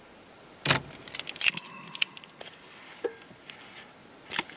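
Car keys jangling and clicking at the ignition switch just after the engine is shut off. The sounds come as a string of short sharp clicks, the loudest about two-thirds of a second in and a cluster around a second and a half.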